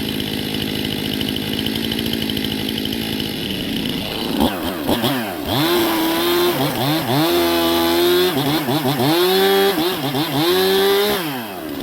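Gasoline chainsaw idling, then from about four seconds in revving up and cutting into cherry wood, its engine pitch sagging under load and climbing again several times before it winds down at the end.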